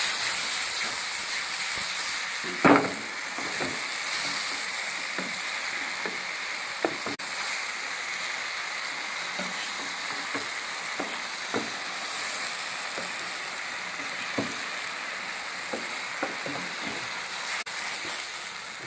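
Chicken pieces in a green coriander and green chilli paste sizzling steadily in a frying pan as the paste is fried in. A wooden spatula stirs them, with scattered knocks and scrapes against the pan, the loudest about three seconds in.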